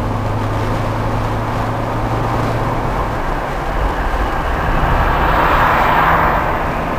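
Car driving on a highway, heard from inside the cabin: steady engine and tyre noise with a low drone for the first few seconds. About five seconds in, an oncoming truck passes with a rush of noise that swells and fades.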